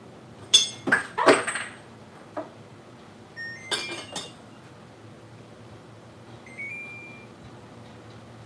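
Kitchenware clinking and knocking: three sharp knocks in the first second and a half, another cluster of clinks about four seconds in, then a short rising electronic beep from the rice cooker as it is set to cook, near the end.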